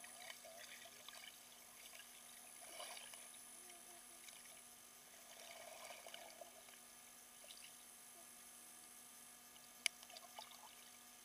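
Near silence from a camera submerged underwater: only faint, scattered crackles and ticks, with one sharp click about ten seconds in.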